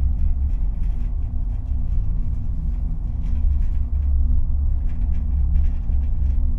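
A steady, loud low rumble with a faint hum above it and light scattered crackles.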